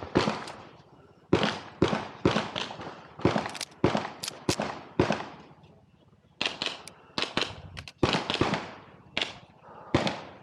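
Handgun shots fired at an irregular pace, several in quick pairs, each crack trailing off in an echo, with a short lull about six seconds in.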